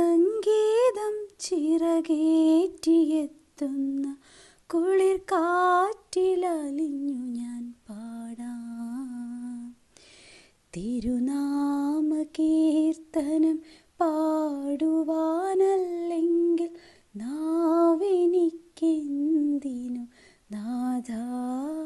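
A woman singing a Malayalam Christian praise song solo and unaccompanied, in long held, gently gliding phrases, with a short pause for breath about ten seconds in.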